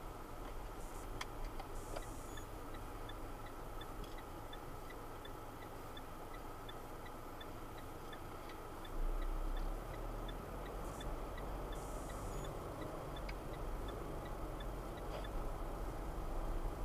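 Road and engine noise of a car heard from inside the cabin while driving, with a faint, evenly spaced high ticking running through it. About nine seconds in, a louder low rumble rises and stays.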